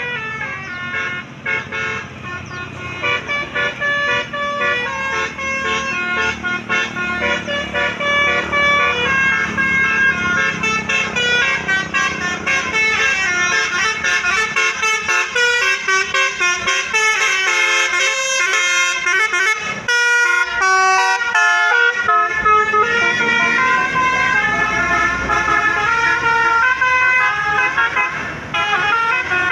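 Bus telolet horn playing tunes: several horn tones stepping up and down in pitch one after another, over the rumble of a motor vehicle.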